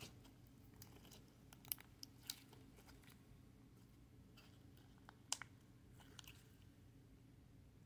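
Soft orange slime squeezed and kneaded by hand, giving faint, scattered wet clicks and little pops as air pockets squish out, with a few louder pops around two and five seconds in.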